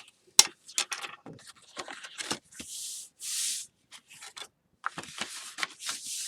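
Bone folder rubbed along the folds of file-folder card to burnish the creases, with two longer rubbing strokes near the middle, among sharp clicks and taps of the card being handled; the loudest is a sharp tap less than half a second in.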